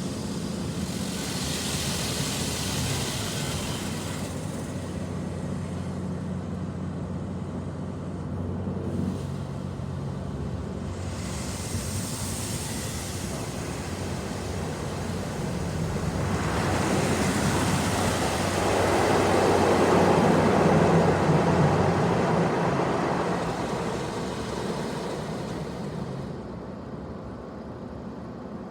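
Car wash at work: a steady low machine hum with short hissing spells of spray, then a rush of water that swells to its loudest about two-thirds of the way through and fades.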